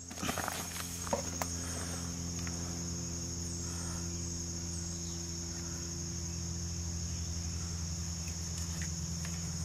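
Steady high-pitched chorus of insects such as crickets, with a few faint clicks and taps of metal parts being handled near the start and near the end.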